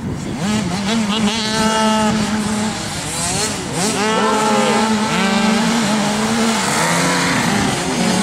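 Several pit bike engines revving hard together, the pitch rising and dropping again and again as the riders accelerate and back off through the corners.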